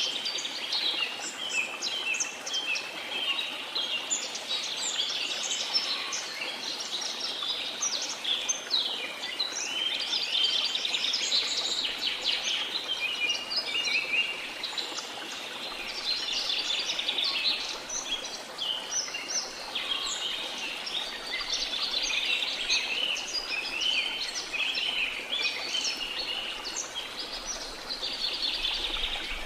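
A dense chorus of many small songbirds chirping and twittering continuously, with calls overlapping, over a steady wash of sea noise.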